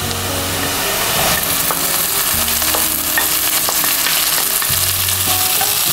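Chopped onion frying in hot oil in a pan, a steady sizzle as it is stirred, with a few light clicks of the spatula against the pan.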